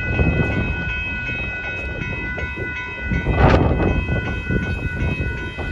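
Amtrak Texas Eagle passenger train rolling past with a low rumble, while a crossing warning bell rings in steady, even strokes and stops near the end. A brief louder rush comes about three and a half seconds in.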